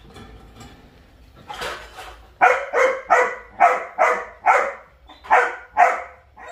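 Belgian Malinois puppies about 80 days old barking: after a quiet couple of seconds, a run of about ten sharp barks, two to three a second.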